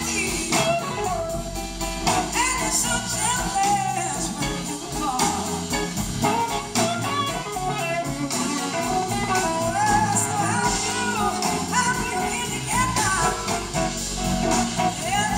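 Live blues-rock band playing: electric guitars over bass and drums, with a woman singing and sliding, gliding melody lines, heard from the audience.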